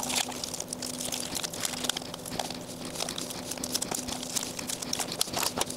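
Blue painter's tape being peeled off a 3D-printed mould and cured silicone: a run of irregular crackling and ticking as the tape pulls away.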